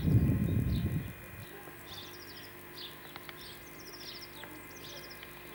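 Small songbirds singing, repeating short chirped phrases and quick trills. A loud low rumble fills about the first second, and a faint steady hum runs underneath.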